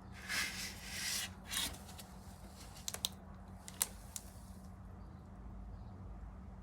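Rustling and handling noises for the first couple of seconds, then a few sharp clicks, over a low steady hum.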